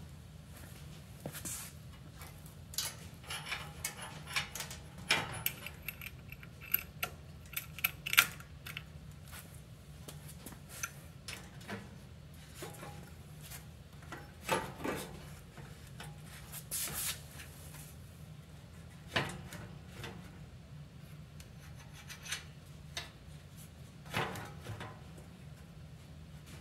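Metal parts of a bicycle rear sprocket mount being handled and fitted by hand: scattered small clicks, knocks and short scrapes, the sharpest click about eight seconds in, over a steady low hum.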